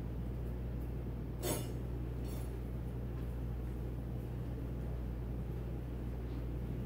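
Steady low hum of room and equipment noise, with one short sharp click about a second and a half in and a fainter one soon after.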